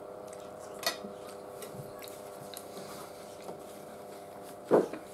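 Quiet eating at a table: a fork clicks against a plate about a second in, and a short thump comes near the end, over a steady low hum.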